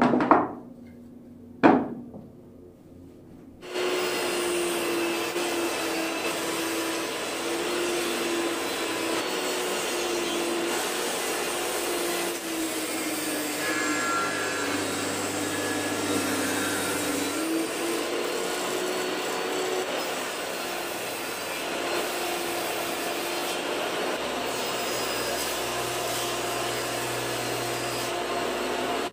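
Wooden boards knocked down onto the table saw's metal top twice, then from about four seconds in the table saw runs with a steady whine, cutting wood, its pitch sagging for a few seconds in the middle as the blade takes the load of the cut.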